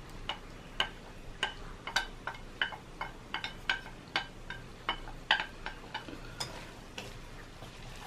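Wooden chopsticks knocking and scraping against a ceramic plate as diced salmon is pushed off it: a string of light ringing clicks, about two or three a second, that stop near the end.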